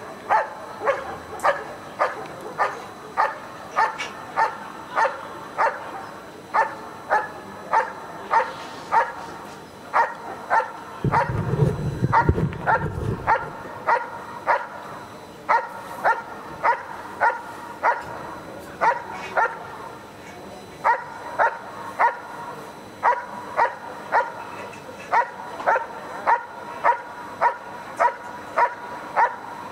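Dog barking steadily and rhythmically at a protection-sport blind, about two barks a second, in a hold-and-bark on a hidden helper. The barking breaks off for a couple of seconds about a third of the way through, while a low rumble takes over.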